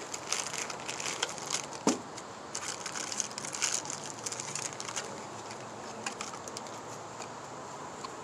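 Plastic inner bag and cardboard box of plant food crinkling and rustling as they are handled, with many small crackles and one sharp click about two seconds in.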